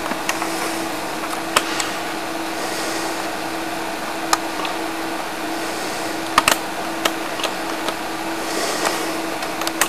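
Steady background hiss with a low, even hum and a few short, sharp clicks scattered through it, the loudest a close pair a little past the middle.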